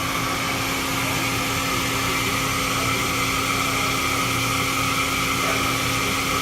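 Awea SP3016 double-column machining center running: a steady machine hum with several constant tones over a continuous hiss.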